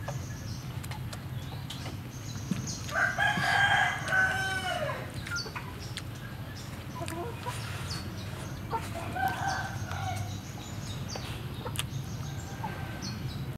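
A rooster crowing once, a loud call of about two seconds starting about three seconds in that drops in pitch at the end, followed later by a second, shorter and weaker call. Short high chirps come and go.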